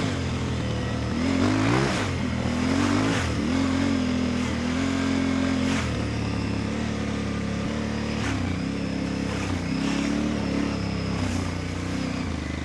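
Aprilia Tuareg 660 motorcycle's parallel-twin engine under way off-road, its pitch rising and falling several times as the throttle is opened and closed.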